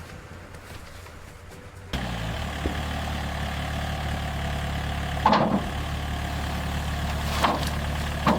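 A small construction machine's engine idling steadily, coming in abruptly about two seconds in, with a few short clanks over it.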